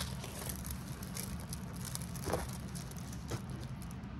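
Clear plastic sleeve around a diamond-painting canvas crinkling and rustling as it is handled, with a couple of sharper crackles, over a steady low hum.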